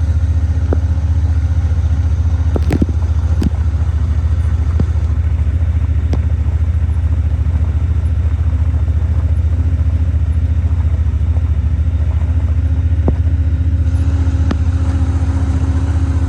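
Engine of a four-wheel-drive farm vehicle running steadily as it drives, heard from on board as a loud, even low drone, with a few sharp knocks and rattles over it.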